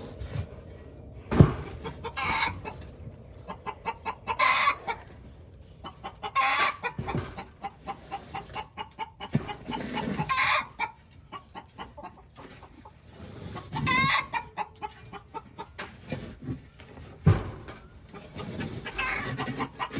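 Backyard hens clucking and cackling in loud repeated calls every few seconds. A couple of sharp knocks come about a second in and again near the end.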